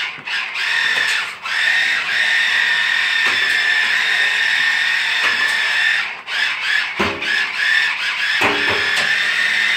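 Small electric drive motor salvaged from a toy RC car, whining steadily as it spins the boat's propeller drive shaft. It cuts out briefly a few times as the remote control is worked between forward and reverse.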